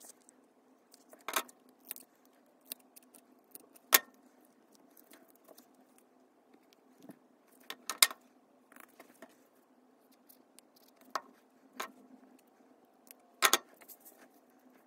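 Cardstock being handled and set down on a cutting mat: scattered sharp taps and paper rustles, the loudest about four and eight seconds in and again near the end.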